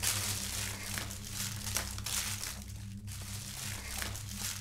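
Plastic candy wrappers crinkling and rustling as hands rummage through a bowl of wrapped Halloween candy, a continuous crackle that thins briefly about three seconds in.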